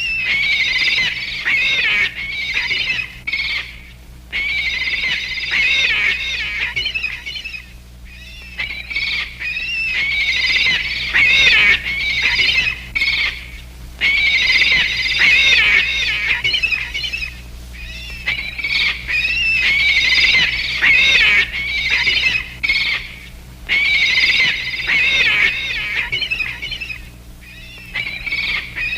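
Cartoon seagull sound effect: rapid, wavering squawking cries in repeated bursts a few seconds long, with short breaks between them, over a faint steady low hum.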